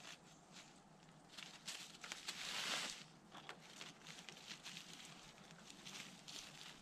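Hands scraping loose soil and dry leaves into a planting hole around an apple sapling: faint crunching and rustling with scattered small clicks, loudest a little over two seconds in.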